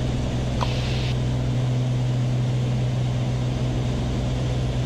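Cabin noise of a Beechcraft Baron B55 in flight: its twin six-cylinder piston engines and propellers give a steady, even low drone with hiss over it.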